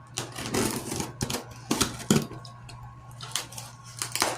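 Cardboard shipping box being cut open with a knife along the tape on top and handled, a run of irregular clicks, scrapes and rustles.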